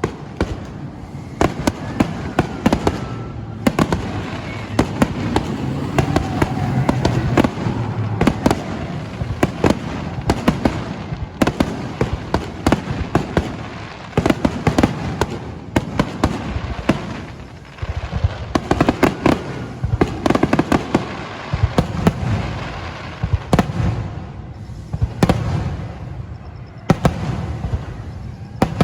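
Aerial fireworks finale: shell bursts going off in rapid, overlapping volleys of bangs and crackling, with only brief lulls between barrages.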